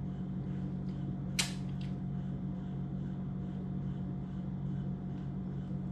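Steady low mechanical hum, with a single sharp click about a second and a half in.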